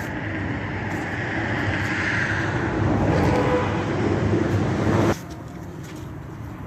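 A running engine: steady rumbling noise that grows louder for about five seconds, then cuts off abruptly, leaving a quieter background.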